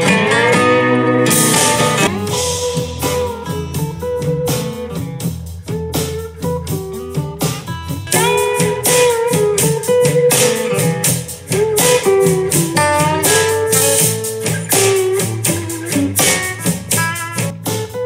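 Blues guitar music with bent, sliding notes, played through a small Bluetooth speaker at 80% volume: first the JBL Clip 5, later the Bose SoundLink Micro.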